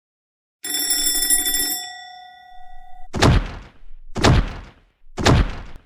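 A bell rings for about two seconds and fades out. Then come heavy thuds about once a second, someone pounding on a door that is stuck shut.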